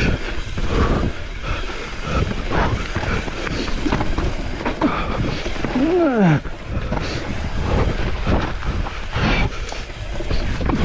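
Mountain bike rattling and knocking over a rough downhill trail, its tyres rumbling continuously. About six seconds in, a short rising-then-falling 'whoa' of the rider's voice.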